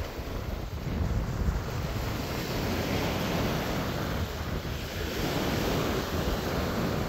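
Sea waves washing on the shore, the hiss swelling and easing, with wind buffeting the microphone in a low rumble.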